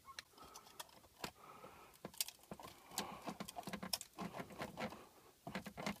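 Faint, irregular clicks, taps and scraping from hands working at a metal pull-out AC disconnect box, tugging at a pull-out handle that is melted in place and won't come out.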